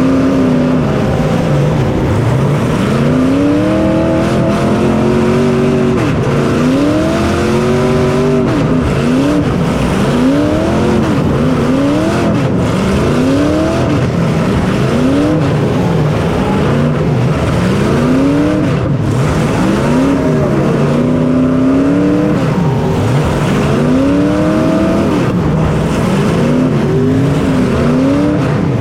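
Small racing engine heard from on board at full race pace, its pitch climbing and dropping again and again every second or two as the throttle is opened and backed off, over a steady rush of wind and track noise.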